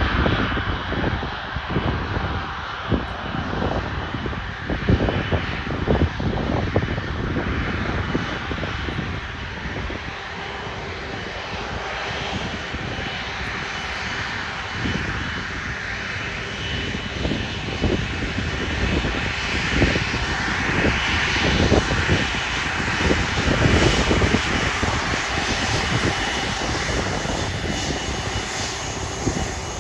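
Airbus A330 turbofan engines at taxi power: a steady jet whine and hiss that swells as the airliner rolls past, loudest about two-thirds of the way through. Gusts of wind buffet the microphone throughout.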